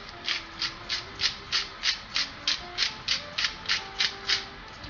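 Bottled pepper grinder being twisted by hand, cracking black pepper: about fourteen short grinding ratchet strokes at roughly three a second, stopping shortly before the end.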